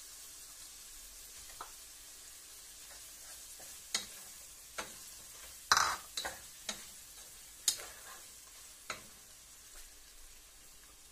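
Wooden spatula clacking and scraping against a frying pan as sausages are stirred, about seven sharp knocks between about four and nine seconds in, the loudest near six seconds. A faint sizzle of frying runs underneath.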